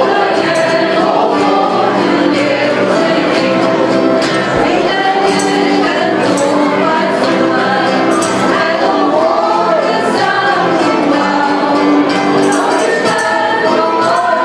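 A mixed choir of men's and women's voices singing a traditional Portuguese Reis (Epiphany) carol, accompanied by guitars, with tambourine jingles on the beat.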